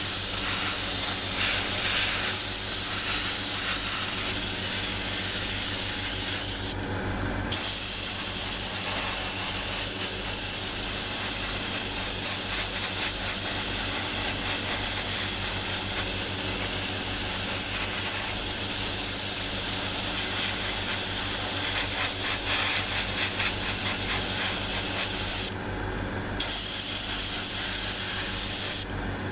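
Airbrush spraying paint in a steady hiss, cut off briefly by the trigger about seven seconds in and twice near the end, over the steady low hum of its air compressor.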